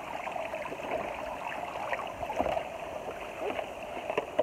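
Seawater spraying from perforated pipes and splashing into abalone tanks: a steady rush of running water with a few small splashes.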